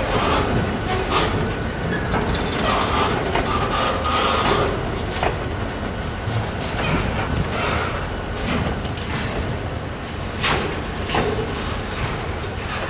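Freight train of log-loaded bulkhead flatcars rolling past close by: a steady rumble of steel wheels on rail, with a few short squealing tones and sharp clanks about ten seconds in.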